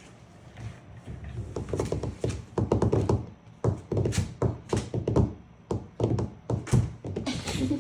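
Irregular thuds and taps on wood, many in quick succession.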